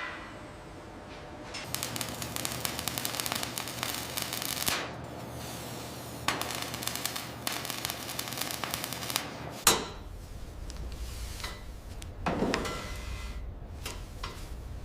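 Metal assembly work: two stretches of rattling, crackling mechanical noise a few seconds each over a low hum, then a single sharp metal clank about ten seconds in, with scattered clicks afterwards.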